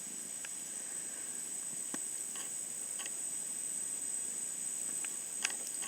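A steady, high-pitched insect drone over a faint hiss, with a few soft ticks and rustles scattered through it.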